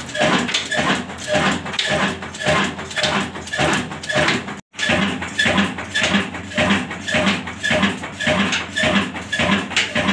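Insaf Daska 20 single-cylinder 'black' diesel engine running at a steady slow speed, a regular heavy exhaust beat about twice a second. The sound cuts out for a split second just before halfway.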